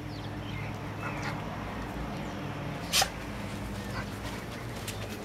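Rottweiler whining softly, then giving one short, sharp bark about three seconds in.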